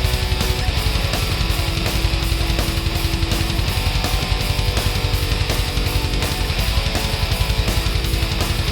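Background music: a fast, driving rock track with distorted electric guitar and a steady beat.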